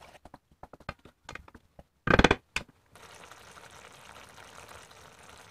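A wooden spatula stirring a thick tomato and bacon sauce in a nonstick frying pan, with quick scraping clicks, then a brief loud clatter of the spatula against the pan about two seconds in. After that the sauce simmers on low heat with a steady, soft bubbling.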